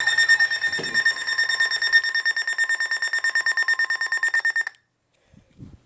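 Weather alert radio's alarm sounding: rapid, high-pitched pulsing beeps that stop suddenly about three-quarters of the way through. The alarm signals an incoming severe thunderstorm warning broadcast.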